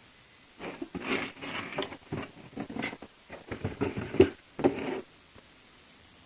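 Irregular rustling, clicking and knocking from a model kit box and its contents being handled, lasting about four seconds and stopping about five seconds in.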